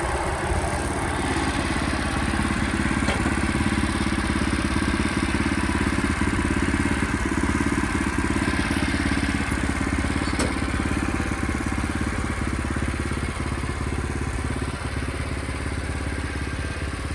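Sawmill running steadily, its engine and blade cutting slab offcuts down into boards.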